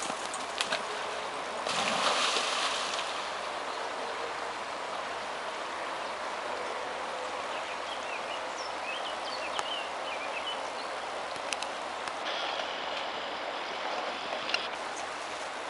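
Steady rush of flowing river water, with a louder splash about two seconds in as a German shepherd goes into the water to swim after a thrown stick.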